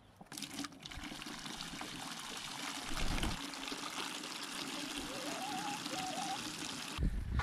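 Water from a garden hose pouring steadily into a plastic bucket. The stream starts just after the beginning and cuts off suddenly about seven seconds in.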